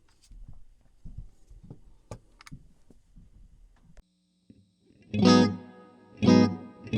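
Faint clicks of handling, then, about five seconds in, an electric guitar strums chords twice, about a second apart, through an MN3005 bucket-brigade analog delay pedal, slightly distorted and ringing on.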